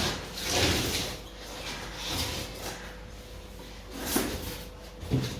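A delivery package being opened by hand: rough scraping and rustling of the packaging in a few swells, the longest in the first second or so, then shorter ones.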